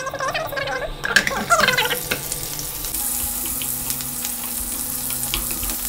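Keema-stuffed bitter gourds (karela) frying in hot oil in a wok, with a steady sizzle and scattered crackles. The sizzle is busiest about a second in.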